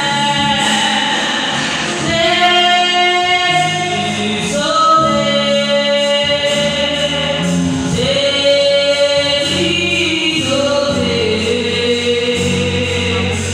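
Gospel song: singing voices holding long notes over a steady musical backing.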